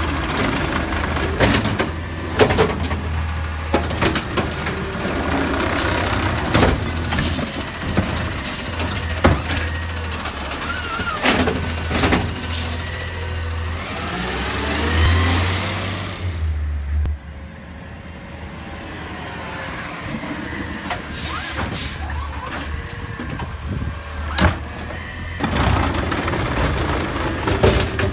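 Autocar ACX garbage truck with a McNeilus ZR automated side-loader arm at work: the engine runs steadily while the arm grips, lifts and dumps plastic waste carts, with many sharp clanks and bangs. About halfway through comes a burst of hissing, and then it goes quieter for a while before the clanking picks up again near the end.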